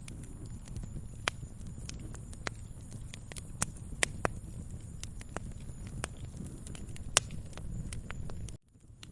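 Wood fire crackling in a fireplace: irregular sharp pops and snaps, a few of them louder, over a steady low rumble. The sound cuts out briefly near the end.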